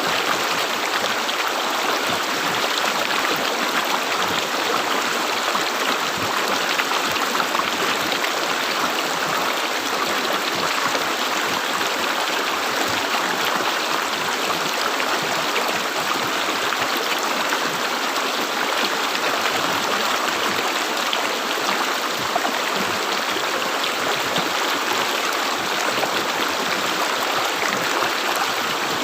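A river flowing steadily with a continuous gurgling rush of water.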